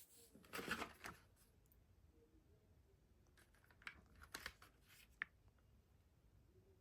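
Faint handling of a CD case: a short rustle about half a second in, then a few sharp clicks toward the middle.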